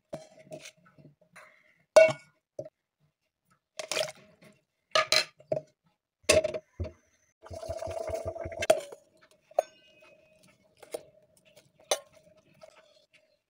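Kitchen clatter: scattered clinks and knocks of potato pieces and a steel potato masher against steel cookware. About a second of splashing water comes a little past the middle.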